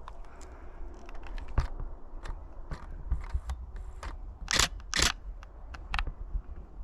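Canon Rebel T7i DSLR shutter firing in single clicks at irregular intervals, with two louder clacks a little past the middle.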